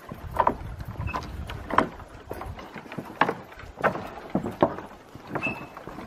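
Footsteps knocking on the wooden plank deck of a swaying suspension footbridge, in uneven steps roughly one or two a second. Two short high squeaks come through, at about a second in and again near the end.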